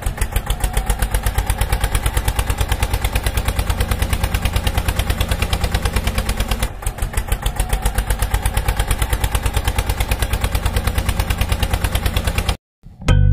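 Tractor engine sound running with a rapid, even chugging beat of about nine beats a second, with a brief hitch partway through. It stops abruptly near the end.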